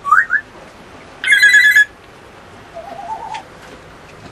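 African grey parrot whistling: two quick rising whistles, then a loud half-second warbling trill about a second in, and a fainter wavering lower note near the end.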